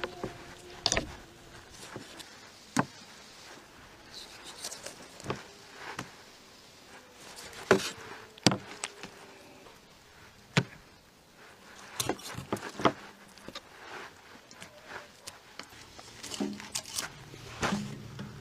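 Large kitchen knife cutting up a raw whole chicken on a wooden cutting board: scattered sharp knocks and cracks as the blade goes through the joints and strikes the board, with quieter handling of the meat in between. Near the end, knocks of firewood being put into a metal stove.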